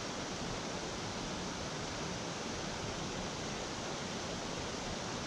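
Steady, even rush of moving water, with no change in level.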